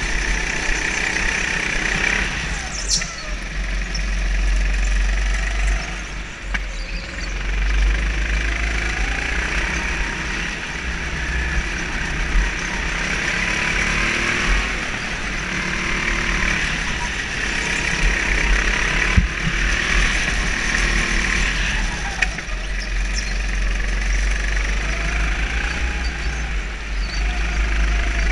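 Go-kart engine heard from the driver's seat, its pitch rising and falling again and again as the kart accelerates and lifts off through the corners, over a constant low rumble.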